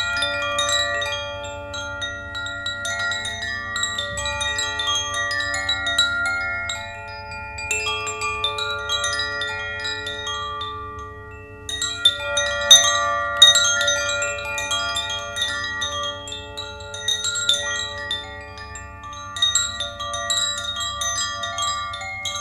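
Wind chimes ringing: many overlapping metallic notes struck in loose clusters, each ringing on and fading, with a short lull about eleven seconds in before a fresh, louder flurry.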